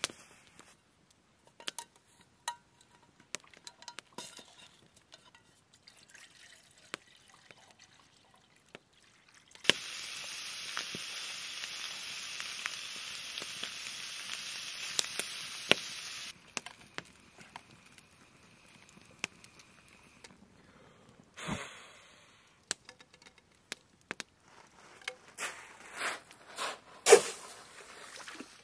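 Wood campfire crackling with scattered sharp pops, and bacon sizzling in a frying pan over the fire for several seconds in the middle before it cuts off suddenly. A dull thump comes a little after, and a run of louder pops near the end.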